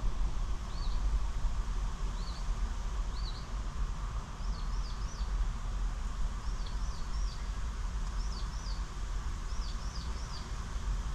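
A bird chirping repeatedly over a steady low rumble. The chirps come singly about once a second at first, then in quick groups of three from about four seconds in.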